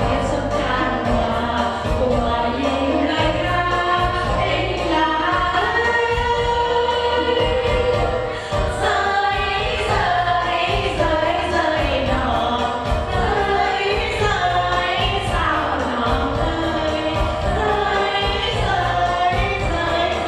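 A group of women singing together through handheld microphones over amplified backing music with a steady beat.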